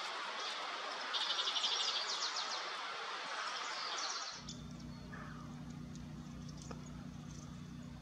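Outdoor ambience with small birds chirping, including a rapid high trill about a second in. About four seconds in the sound changes to a steady low hum with a faint tap or two.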